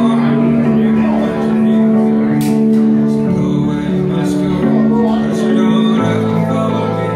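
Live music on a Yamaha electronic keyboard: held chords that change a few times.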